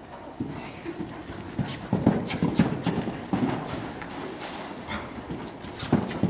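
Hoofbeats of a cantering horse on soft dirt arena footing: a run of dull thuds, loudest and thickest about two to three seconds in.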